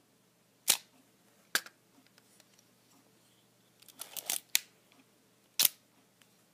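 Olympus OM-2N 35mm SLR being worked by hand: single sharp shutter-and-mirror clicks about a second in, at about a second and a half, and near the end. A little past the middle comes a quick cluster of smaller clicks and rattle.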